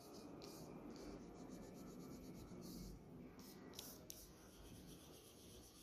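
Faint scratching of a yellow crayon colouring on paper, with a few short rustles as a hand moves over the page.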